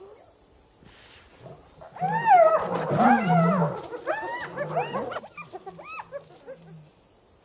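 Spotted hyenas and a lion cub calling in a fight over the cub. After a quiet start, a loud burst of overlapping yelping, rising-and-falling calls over a lower growl begins about two seconds in. It breaks into shorter, fainter calls that die away before the end.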